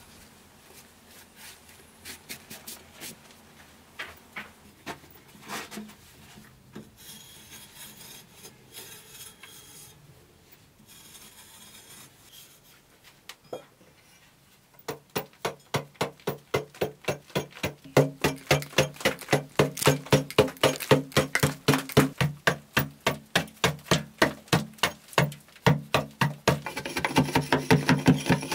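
Flat metal blade of a hand scraping tool rasping over a packed-earth wall in quick, even strokes, about three a second. The strokes begin about halfway in and grow louder. Before that there are only faint scattered scrapes and taps.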